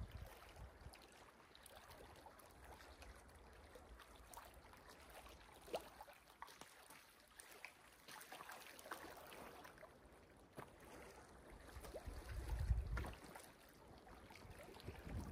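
Faint outdoor ambience with scattered light ticks, and a low gust of wind buffeting the microphone about twelve seconds in.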